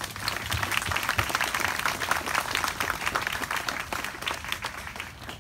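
A small crowd applauding, many hands clapping at once, tapering off near the end.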